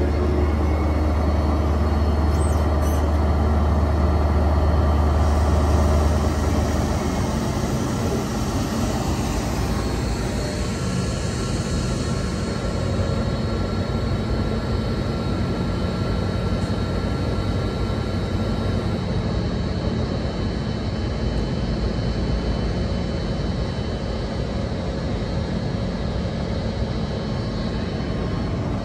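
Class 246 Bombardier TRAXX diesel-electric locomotive running steadily. A strong deep drone eases off about six or seven seconds in, leaving a steadier hum with faint high whines above it.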